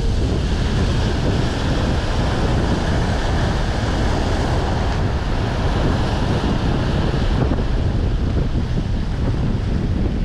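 Rough sea surging and breaking against rocks, with wind buffeting the microphone in a steady low rumble.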